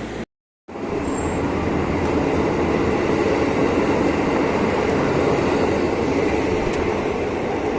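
Train running on the rails, a steady rumbling noise, cut off briefly to silence about half a second in.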